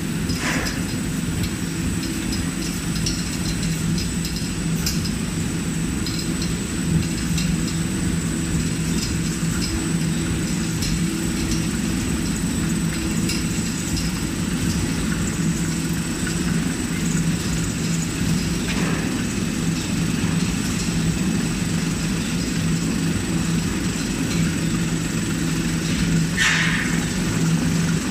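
Automatic paratha production line running: the electric motors driving its dough-sheeting rollers and conveyor belt give a steady, even low hum, with faint clicking over it.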